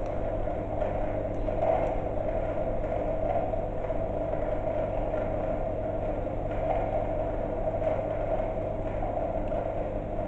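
Steady hum of an industrial sewing machine's electric motor running with the needle at rest, with a few faint clicks as the work is handled at the needle.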